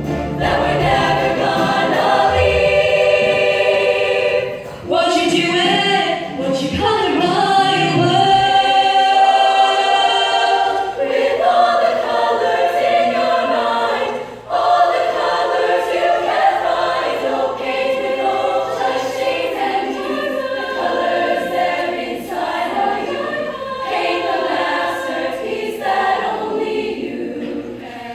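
A girls' show choir singing in harmony, mostly unaccompanied, with brief dips between phrases.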